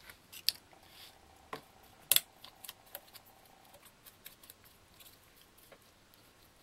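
Paintbrush dabbing metallic acrylic paint onto a heat-curled plastic water-bottle flower: scattered faint taps and crackles of the stiff plastic petals, the sharpest about two seconds in.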